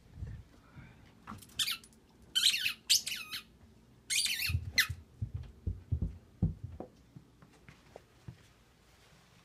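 Four short runs of high, wavering squeaks, then a series of soft thuds as a small rubber ball bounces down carpeted stairs.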